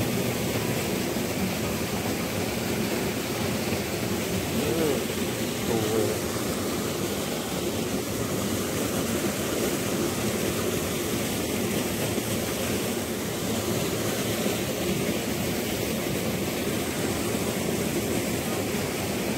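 Shallow stream running over stones: a steady rush of water.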